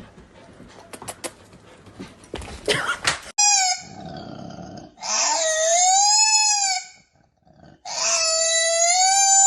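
Rustling and a few sharp clicks, then an animal calling loudly: one short call, then two long drawn-out calls of about two seconds each, their pitch rising and falling.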